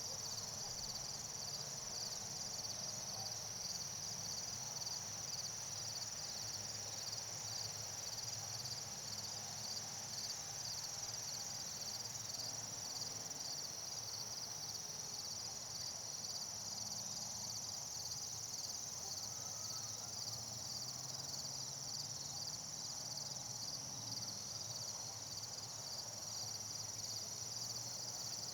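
A chorus of insects chirping steadily in a high, pulsing drone.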